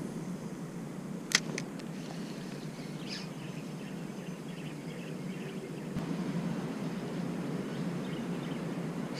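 Steady low outdoor background noise, with one sharp click a little over a second in, two fainter clicks just after it, and a short high chirp about three seconds in.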